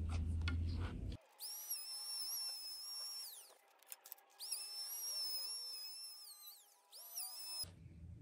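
Corded electric hand planer trimming the edge of a plywood floor panel. Its motor spins up to a high steady whine, runs for about two seconds and winds down, twice, then gives a short burst near the end.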